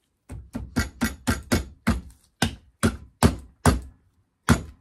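An ATV CV joint being knocked down onto the axle's splined shaft with the flat of a gloved hand: about a dozen sharp knocks on the metal joint, quick at first, then slowing to about two a second.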